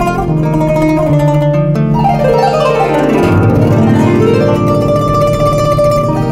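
Kanun, the Turkish plucked zither, playing an improvised taksim: quick plucked notes, with a fast run sweeping down the strings and back up about two to three seconds in.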